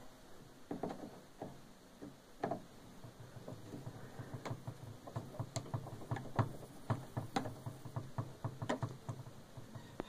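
A screwdriver backing out small screws from a refrigerator's plastic cover panel: irregular light clicks and ticks of the tool on the screws and plastic, over a faint steady low hum.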